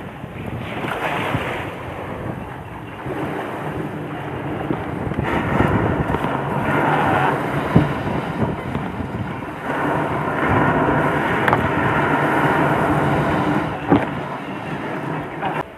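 Waves breaking on a beach, with wind buffeting the microphone, as a small paddled outrigger boat lands through the surf. Two sharp knocks cut through, one near the middle and one near the end.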